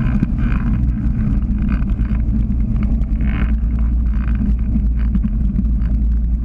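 Weight-shift microlight trike's engine and propeller running steadily as the trike taxis on the ground.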